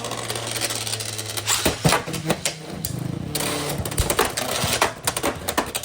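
Two Beyblade spinning tops battling in a plastic stadium: a steady spinning hum fades out about a second in, under rapid clicks and knocks as the tops strike each other and the stadium wall, with a heavier knock about four seconds in.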